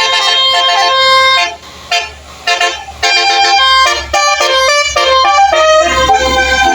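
Basuri telolet multi-tone horn on a truck playing a tune: several horn trumpets sounding together in short stepped notes. There is a brief break about a second and a half in.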